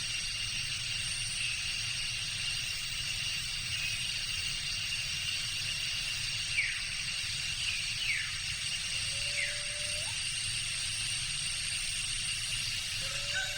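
Tropical forest ambience: a steady insect chorus holding several high, constant tones over a low rumble. Short falling bird calls come in a few times around the middle, and a lower, slightly rising call sounds twice, near the middle and near the end.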